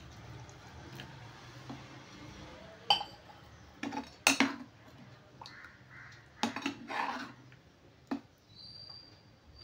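A steel ladle stirring curry in an aluminium pot, clinking and scraping against the pot's sides in a handful of sharp knocks.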